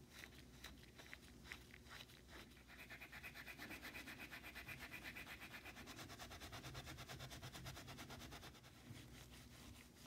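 Steel wool scrubbing a small knurled brass part of a hand plane: a few uneven scrapes at first, then faint, rapid, even back-and-forth rubbing for several seconds before it slows near the end.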